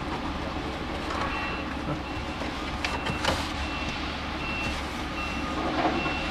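Clicks and rustling of plastic trim and wiring being handled under a car dashboard, with a couple of sharper clicks about three seconds in. A steady low hum runs underneath, and a faint high beep repeats about once a second.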